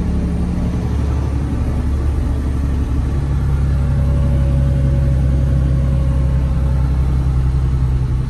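Semi truck's diesel engine and road noise heard from inside the cab while driving, a steady low hum. The engine's pitch changes about three seconds in.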